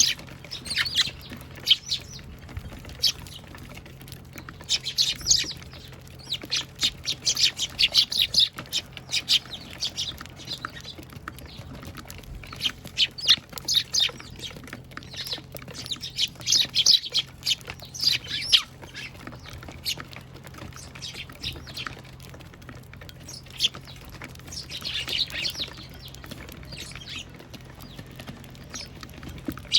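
A flock of Eurasian tree sparrows chirping, many short sharp chirps coming in bursts with brief lulls between.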